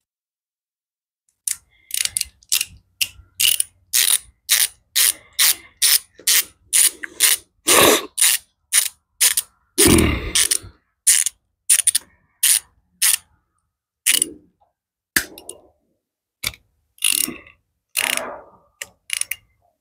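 Socket ratchet clicking in repeated short strokes, about two a second, with a few heavier clunks in between, as the ignition coil's mounting bolts are run in on a Briggs & Stratton riding-mower engine. It starts about a second and a half in and thins out toward the end.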